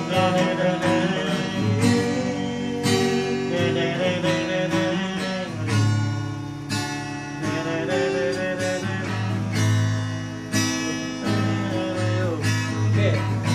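Acoustic guitar strummed and picked through a slow pop ballad, with a man's singing voice holding drawn-out notes over it.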